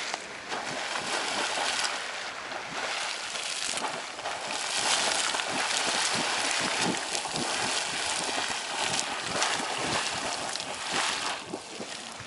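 Geyser erupting: water splashing and churning in a steady rush, with irregular surges, easing off near the end.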